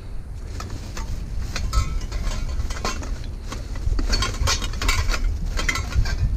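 Scrap metal being handled: a metal pole clanking and rattling in a quick series of clinks and knocks, busiest in the second half.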